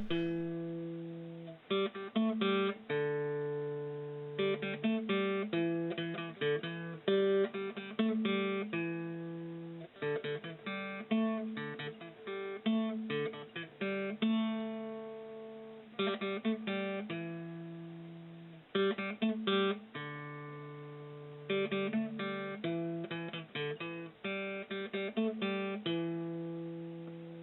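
Acoustic guitar music: plucked and strummed notes that ring out and fade, in short phrases with brief pauses between them.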